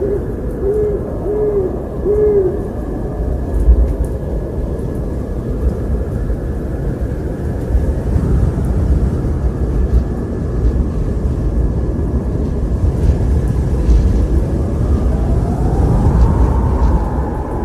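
An owl hooting a few times in the first three seconds over steady, low wind noise. Near the end a higher, moaning wind tone rises and holds.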